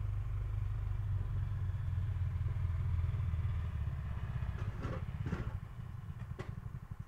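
A small engine idling: a low rumble that settles into an even pulsing about four seconds in, with a few light clicks.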